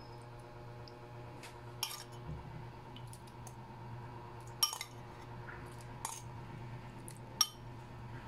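Metal serving spoon clinking against a ceramic bowl and an enamelled pot as saucy marinated chicken is spooned in: four sharp clinks, the loudest about four and a half and seven and a half seconds in, over a steady low hum.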